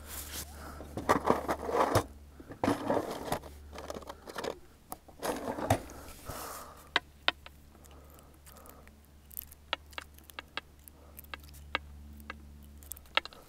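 Pole-fishing tackle being handled: a busy stretch of scraping and knocking as the pole is moved on its rest, then scattered sharp clicks and small rustles while the hook is rebaited.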